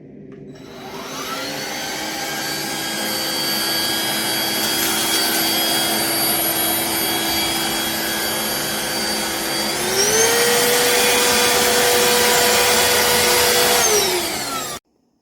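Black+Decker POWERSERIES+ 20V MAX cordless stick vacuum motor spinning up and running with a steady whine. About ten seconds in it steps up to a higher, louder speed, then winds down and stops near the end.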